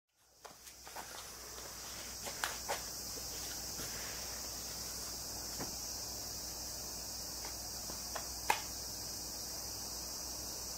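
Steady, high-pitched chorus of insects chirring, with a few light knocks and clicks, the sharpest about eight and a half seconds in.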